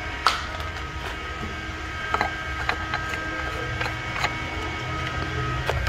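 Infiniti G35's 3.5-litre V6 idling steadily right after an oil change, with several sharp clicks and taps spread through.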